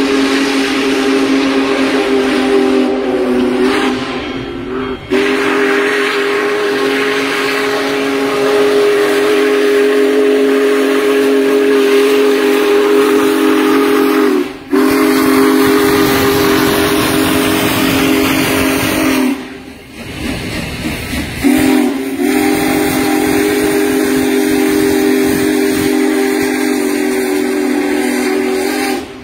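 Steam engine's whistle blowing long, loud blasts, sounding a chord of several steady tones at once over the hiss of escaping steam. There are four blasts, with short breaks about five and fifteen seconds in and a longer hissing gap around twenty seconds.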